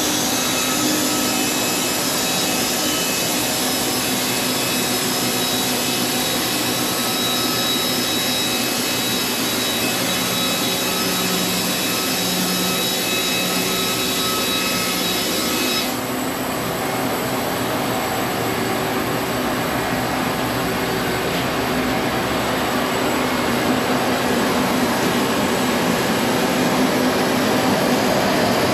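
Sawmill blade cutting through an old heart pine beam: a loud, steady, hissing saw noise with a machine hum under it. The high hiss drops off about sixteen seconds in.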